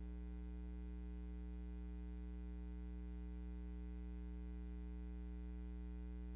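Steady electrical hum with a stack of overtones, unchanging, left on the soundtrack of an old 16 mm film transfer after the music has ended.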